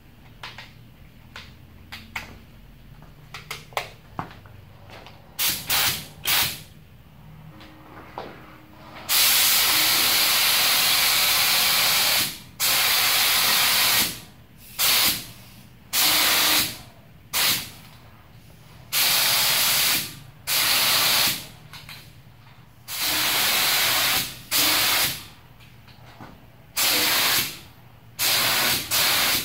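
Primer spray gun with a 1.8 mm tip, fed by an air hose, hissing in repeated bursts as the trigger is pulled: one long pass of about three seconds, then many shorter ones of a second or two. A few light clicks and two or three short test blasts come first.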